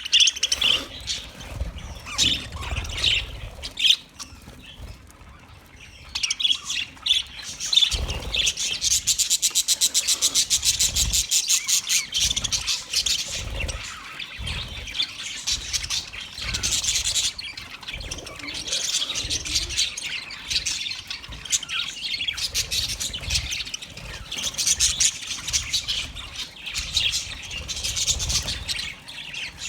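Budgerigars chattering and warbling continuously, with a stretch of rapid, evenly spaced clicking notes about a third of the way in and occasional low thumps.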